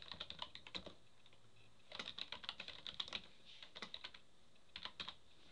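Typing on a computer keyboard: quick, light key clicks in a few short runs with brief pauses between.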